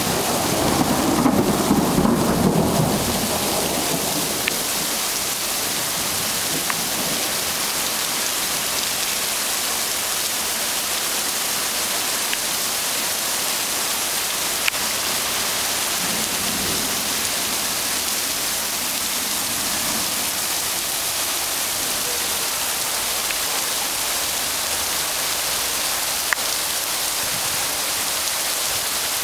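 Hail and torrential rain pelting a street and pavement: a dense, steady hiss of stones and drops striking wet asphalt. A low rumble runs through the first three seconds, and a few sharp ticks stand out here and there.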